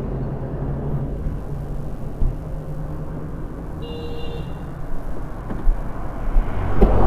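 A vehicle engine running steadily at low revs, heard as a constant low hum, with a short faint pitched tone about four seconds in and the noise swelling near the end.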